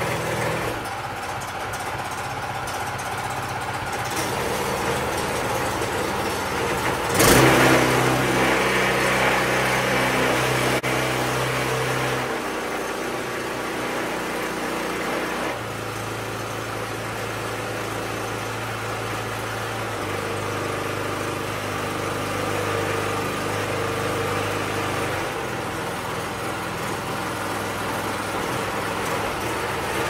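Predator 212cc single-cylinder four-stroke engine running with a generator-style muffler. Its speed is changed several times, with a sudden loud burst about seven seconds in. The muffler makes it sound way quieter, especially at low RPM.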